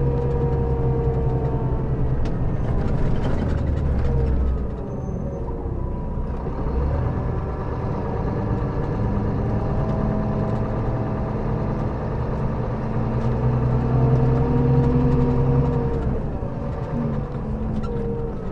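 Scania K400B coach engine running on the road. Its note drops about four seconds in, then climbs slowly and grows louder, and drops again near the end.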